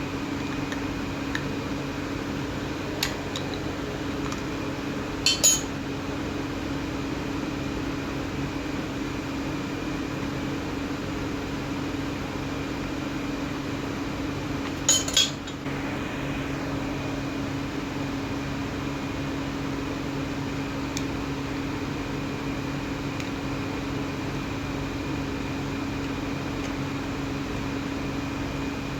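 A steady electric motor hum with two brief metallic clinks, about five and fifteen seconds in; the second clink is doubled.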